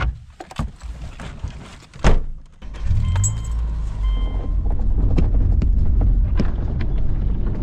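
Two heavy thunks, like car doors shutting. Then, about three seconds in, a car's steady low rumble sets in and carries on, with two short electronic chime tones soon after it begins.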